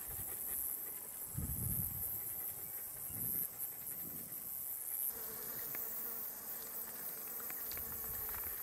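Steady high-pitched chorus of insects, with a couple of low rumbles about one and a half and three seconds in.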